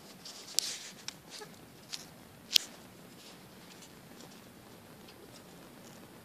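Burning plastic toy car crackling: a few sharp pops over a faint hiss in the first three seconds, the loudest about two and a half seconds in, then only faint scattered crackle.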